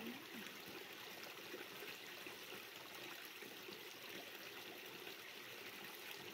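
Faint, steady rushing of a flowing stream.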